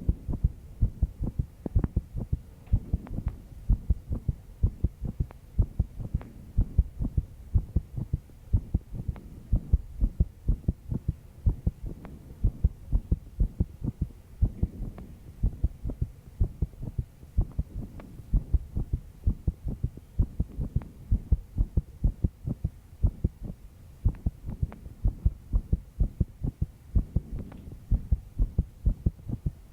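A young woman's heart beating fast under stress: a steady, even run of low thumps, coming in lub-dub pairs.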